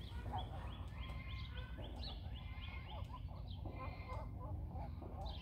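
Birds calling: a run of short, quick chirps and clucks, over a steady low rumble.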